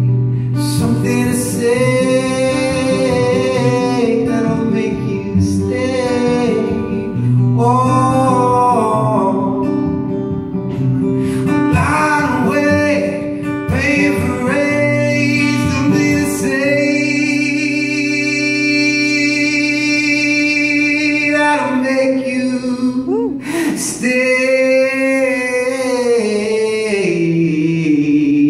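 A man singing live to his own acoustic guitar, drawing out long held notes; one note is held for about four seconds in the middle.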